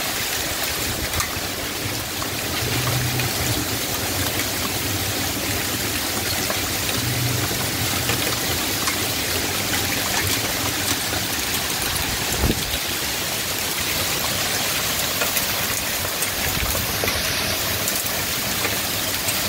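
Heavy, wind-driven rain of a severe thunderstorm with straight-line winds: a dense, steady hiss of rain on the ground, roof and trees. A low hum swells briefly twice in the first eight seconds, and there is a single sharp tick about two-thirds of the way through.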